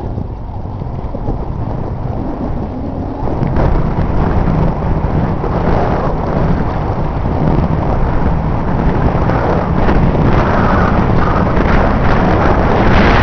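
Wind buffeting the microphone: a loud, rough rumble that grows louder about three and a half seconds in and again near the end.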